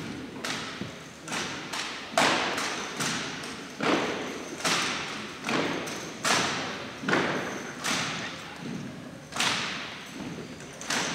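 An armed drill team stomping in unison on a gymnasium floor as it marches in step. The stomps come evenly, a little faster than one a second, each echoing through the gym.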